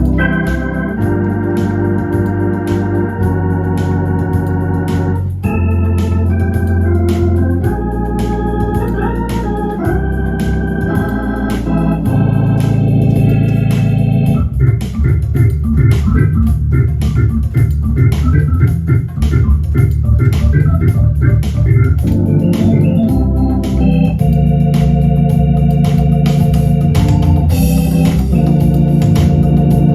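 Electronic organ playing music: sustained chords over a bass line, with a stretch of quick repeated notes in the middle, backed by a steady built-in rhythm beat.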